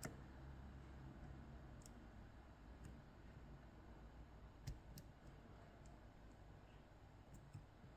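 A handful of faint, scattered clicks from a lock pick working the pin stacks of an Ezcurra DS-10 lock, pins setting under tension as it is picked; one click about halfway through is a little louder.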